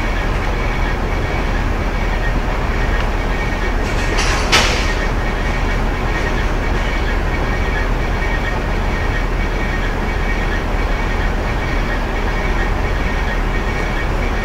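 Steady rumble of a bowling alley: balls rolling down the lanes and the ball return and pinsetter machinery running. One sharp clatter stands out about four and a half seconds in.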